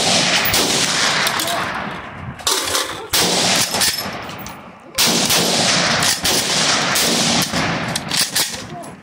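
Rifle fired rapidly, shot after shot, each with a long echo. A few heavier blasts, at the start and about two and a half, three and five seconds in, ring on for a second or two.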